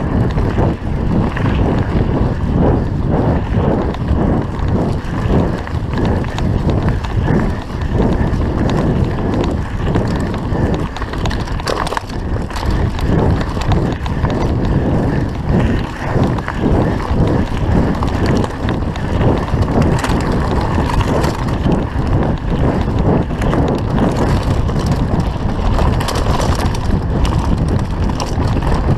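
Mountain bike descending a rough trail: a constant clatter and rattle of the bike over rocks and bumps, with tyre rumble and wind on the microphone.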